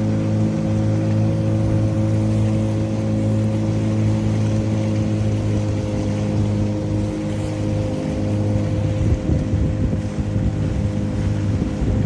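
CraigCat small catamaran boat under way, its outboard motor running at a steady cruising note with wind and water rushing past. The engine note wavers briefly about seven seconds in, then steadies again.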